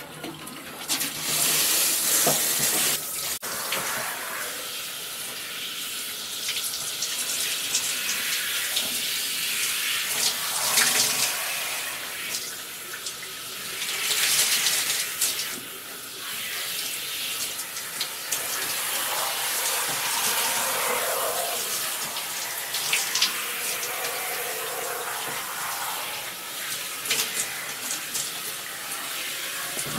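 Handheld shower head spraying water in a bathtub, a steady hiss of spray that rises and falls in loudness as the stream moves over the body and the tub.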